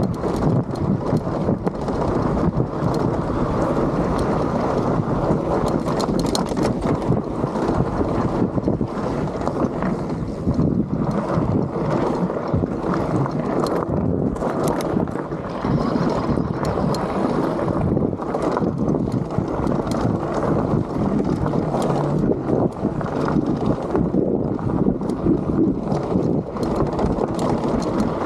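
Wind rushing over the microphone of a bike riding down a rocky trail, with frequent sharp clicks and clatter from the bike over the rocks.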